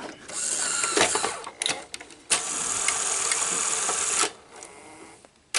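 Sony SL-100 Betamax VCR loading a cassette: a whir and a few clicks from the loading mechanism, then a steady motor whir for about two seconds that stops sharply, with a click at the very end.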